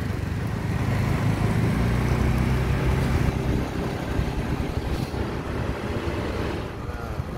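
Motor scooter engine running while riding along a street, with wind and road noise; the engine hum is strongest in the first few seconds.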